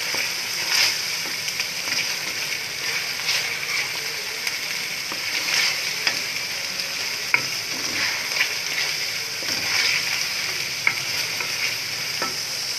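Beef pieces sizzle steadily as they fry in a yogurt-and-spice masala in a metal pot. A wooden spatula stirs them and scrapes the pot every second or two. This is the bhuna stage of a beef korma, with the meat being browned in the masala.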